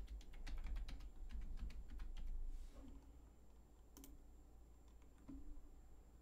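Typing on a computer keyboard: a quick run of keystrokes entering a password, then two separate clicks, one about four seconds in and another a second or so later.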